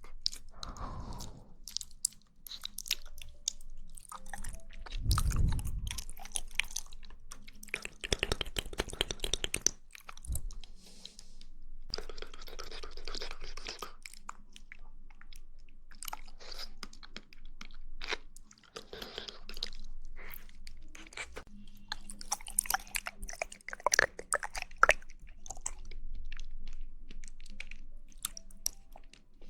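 Close-miked mouth sounds of someone eating jelly: wet chewing and smacking, a dense run of short clicks in irregular bursts.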